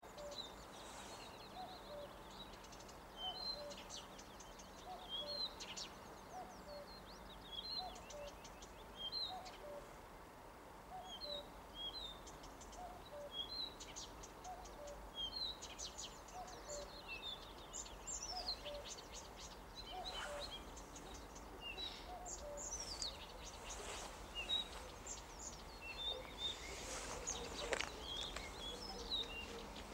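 Songbirds singing, several at once, with one short chirping phrase repeating about once a second, over a faint steady background hum.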